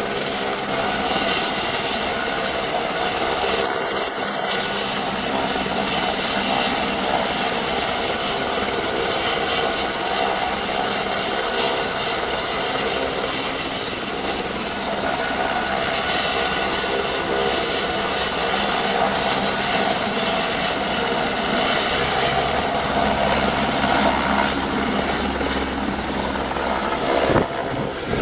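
Eurocopter AS350 B2 Esquilo helicopter running with rotors turning: a steady high turbine whine over the rotor's drone. Late on the low rotor sound grows fuller as the helicopter lifts off into a hover.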